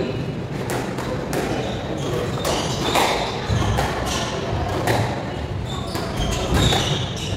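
A squash rally: the ball is struck by rackets and smacks off the court walls and floor in sharp knocks, about one every half second to a second, ringing in a large hall.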